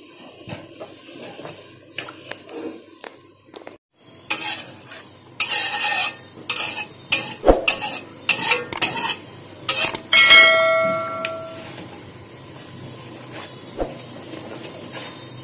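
A ladle scraping and knocking against a wok as boiled fish is crushed and stirred in its broth. After a quieter first few seconds comes a quick clatter of strikes, and one blow about ten seconds in leaves the wok ringing briefly.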